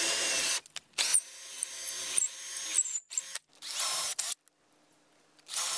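Ryobi cordless drill with a 5/16-inch bit running in several bursts as it bores the handle holes through a storm door's frame, stopping briefly between holes and going quiet for about a second before a last short run.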